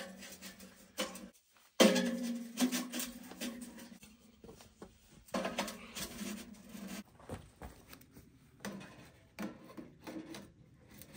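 Sections of metal stovepipe for a small tent wood stove being slid together and pushed up through the tent's stove jack: scraping, rubbing and clinking of metal, with irregular taps and knocks.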